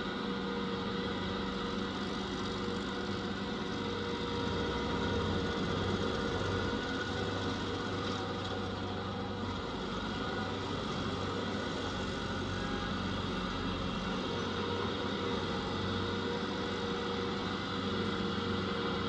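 Vermeer tracked stump grinder's engine running steadily while its cutter wheel works a tree stump.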